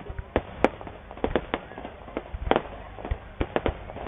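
Firework display: aerial shells bursting in a string of sharp bangs at uneven intervals, some close together, the loudest about two-thirds of a second in and about two and a half seconds in.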